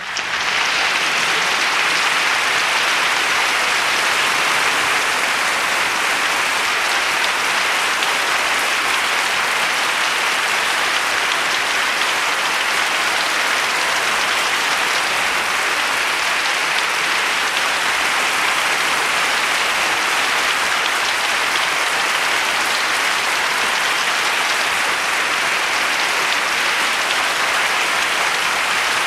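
Crowd applauding: a dense, steady wash of clapping that keeps an even level throughout, with no pauses.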